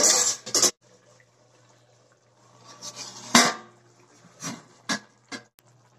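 Stainless-steel lid being handled and lifted off a steel kadai of simmering chickpea curry: metal scraping and a clank about halfway through, followed by a few light clinks.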